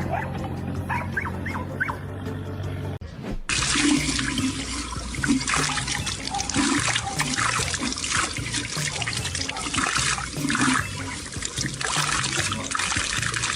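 A dog's few short yelps, then from about three seconds in a steady rush of running water, with background music underneath.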